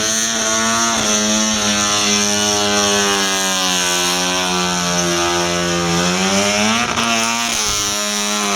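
Rotary engine of a Mazda 323 station wagon held at high revs during a burnout, its pitch steady and wavering slightly, with a brief dip in revs that picks back up near the end, over a steady high hiss.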